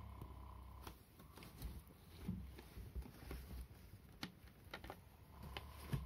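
A cat rubbing its head hard against a bundle of paper tubes, making faint irregular scraping and rustling clicks. A low purr is heard at the start and again near the end.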